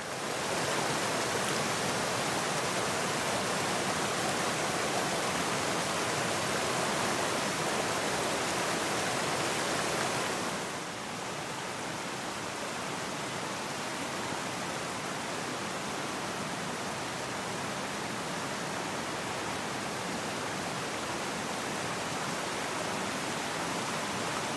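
Shallow woodland creek rushing over rocks: a steady, even rush of water that drops a little quieter about ten seconds in.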